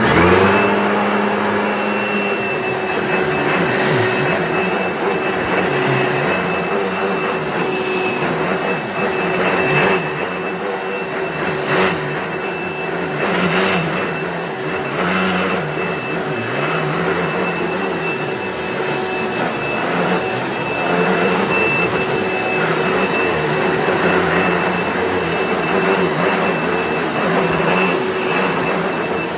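Vacuum cleaner switched on, its motor spinning up to a steady whine within about two seconds. It then runs on a rug, its lower hum wavering as it is worked back and forth.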